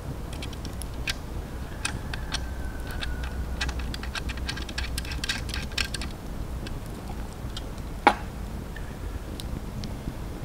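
Small wood campfire crackling, with scattered sharp pops that come thickest in the middle and one much louder pop late on.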